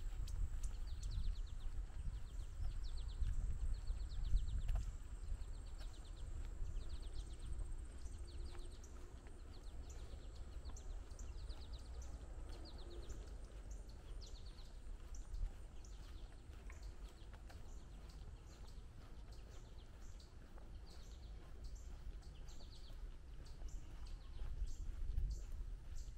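Outdoor park ambience: a low, steady rumble with a small bird chirping over it. The bird gives short trilled runs of chirps in the first half, then single short chips about twice a second.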